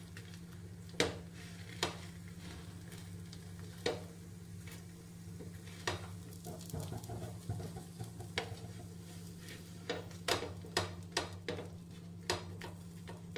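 Metal spatula tapping and scraping on a non-stick tawa as a dosa is roasted, over a steady low hum. The taps come singly at first and in a quicker run in the last few seconds.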